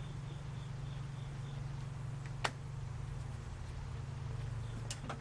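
Cable cutters snipping through a corroded battery cable, with one sharp click about two and a half seconds in and fainter clicks near the end, over a steady low hum.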